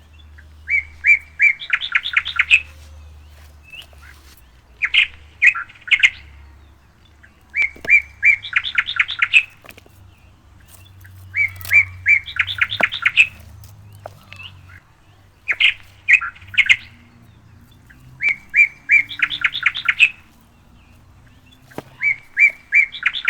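A songbird singing the same short phrase over and over, about every three and a half seconds: a few separate notes followed by a quick run of rapid notes.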